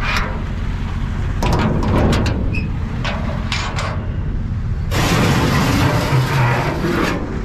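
Metal latch and rear doors of a dump truck's bed clicking and clanking as they are unlatched and swung open, followed about five seconds in by a couple of seconds of loud scraping as a wheelbarrow is dragged across the bed. Underneath, the truck's 7.3L diesel engine hums steadily at idle.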